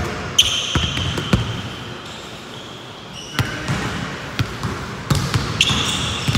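Basketballs bouncing on a hardwood gym floor, a series of irregular thuds that thin out for a moment midway. Two short high squeaks, about half a second in and again near the end, like sneakers on the court.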